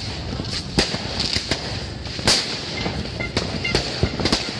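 Fireworks and firecrackers going off in sharp, irregular bangs, about two a second, the loudest about halfway through, over a continuous background din.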